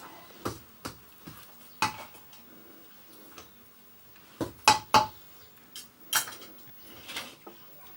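Metal kitchen utensils clattering against pots and dishes: a series of separate knocks and clinks, some with a short metallic ring, the loudest two close together about halfway through.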